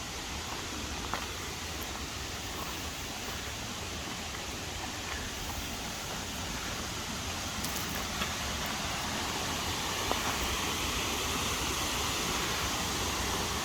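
Steady rushing roar of a waterfall, growing slightly louder through the seconds, with a few faint clicks.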